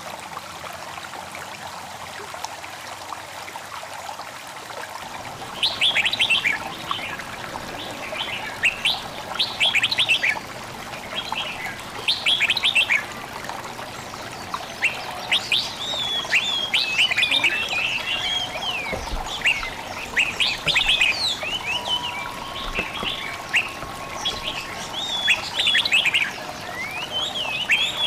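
Nature recording of a babbling stream with songbirds: a steady rush of water, joined about five seconds in by many quick, high chirps and twitters that keep going throughout.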